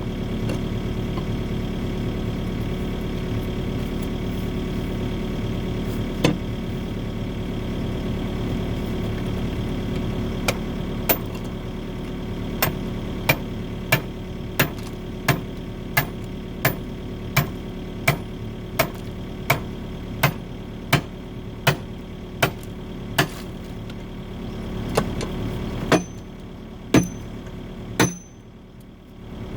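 An excavator's diesel engine running steadily. From about a third of the way in, sharp hard strikes on concrete come at an even pace of roughly three every two seconds. The engine drops quieter for a moment near the end.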